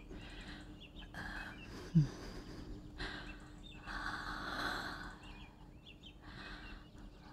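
An elderly woman breathing out in audible sighs, with a short falling groan about two seconds in.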